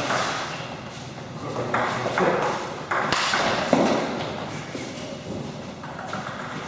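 Table tennis rally: the celluloid/plastic ball knocked back and forth, a handful of sharp clicks of ball on bat and table, about half a second to a second apart, with a short echo.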